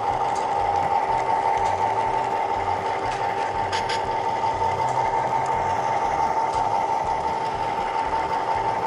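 HO-scale model train running along the track, heard from on board: a steady high-pitched electric motor whine over a low rolling rumble of wheels on rail, with a couple of sharp clicks about four seconds in.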